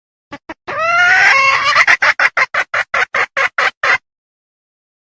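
Female red junglefowl hen in breeding condition calling to males: two short notes, a long drawn-out call with wavering pitch, then a quick run of about a dozen short clucks, about five a second.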